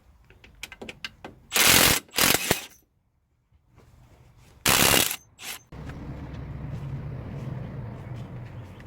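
A few loud, sharp knocks and clatters. From about six seconds in, a steady low hum of an engine idling sets in.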